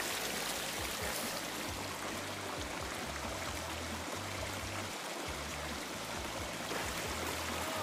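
Shallow mountain stream running steadily: a continuous, even water noise.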